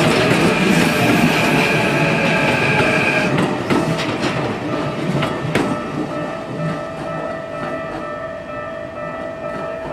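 Keikyu electric train running through a level crossing, its wheels clacking over the rail joints. A steady high whine runs with it and stops about three seconds in. After that the train sound fades as it moves away, with a few louder clacks.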